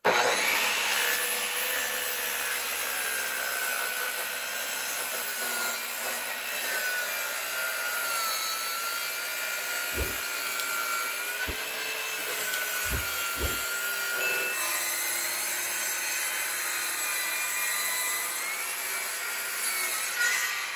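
Electric circular saw ripping lengthwise through a wooden board, running steadily under load with a high whine that wavers a little in pitch. A few dull knocks come about halfway through.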